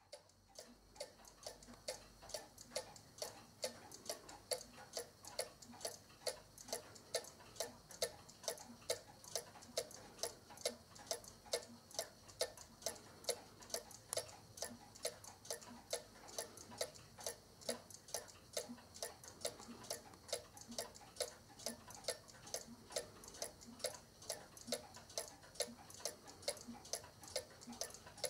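A Black Forest cuckoo clock from about 1950–60 ticking steadily: the even tick-tock of its weight-driven pendulum movement.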